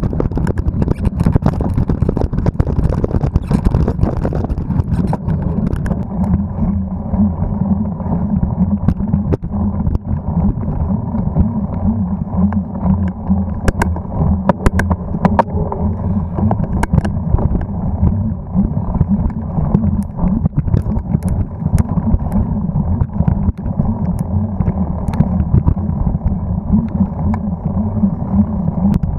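Mountain bike riding noise through an action camera's microphone: wind buffeting and the bike rattling over a dirt trail. It is harsher and more rattly on the fast descent for the first few seconds, then becomes a duller rumble with occasional sharp clicks on the slow climb.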